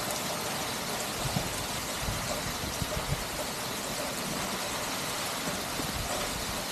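Heavy rain pouring down onto flooded, water-covered ground: a steady, even hiss with a few soft low thumps.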